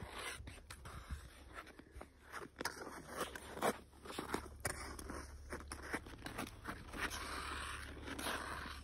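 Ice skates scraping and crunching on frozen river ice in irregular strides, over a steady low hum.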